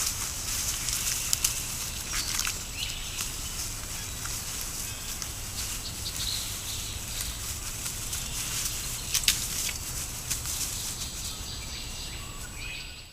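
North American river otters moving and handling sticks in leaf litter: soft rustling with a few sharp clicks and snaps, over the steady hiss of a trail camera's microphone.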